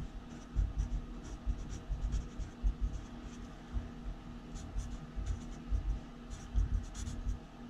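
Felt-tip marker writing on paper laid on a wooden desk: irregular short pen strokes with faint scratchy squeaks and light knocks of the hand and pen against the desk.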